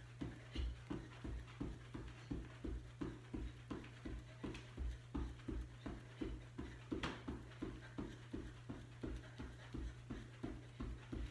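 Sneakered feet jogging in place with high knees on a rug over a wooden floor, landing in soft, even thumps about three times a second. A steady low hum runs beneath.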